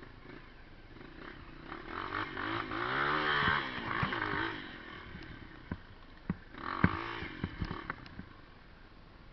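A motor vehicle's engine passing close by, its pitch rising and then falling, followed a couple of seconds later by a shorter second burst of engine noise with a few sharp clicks and clatters.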